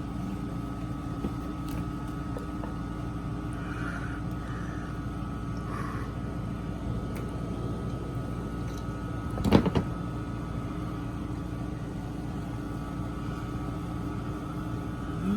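Tour boat's motor running with a steady hum, with a brief knock or clatter about nine and a half seconds in.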